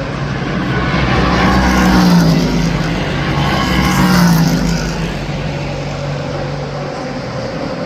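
Race car engines at high revs passing by at speed. The engine note swells and falls away twice, about two seconds apart.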